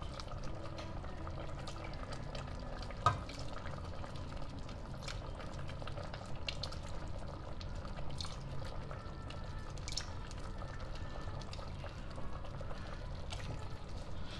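Evaporated milk poured from a can into a tablespoon and tipped into a pot of soup, spoonful after spoonful: small liquid pours and drips, with one sharp clink about three seconds in.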